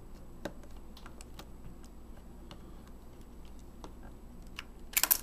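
Light clicks and taps of fingers handling a Pentax E50 compact digital camera's casing, then a quick cluster of louder clicks near the end as the case parts are pressed together to snap shut.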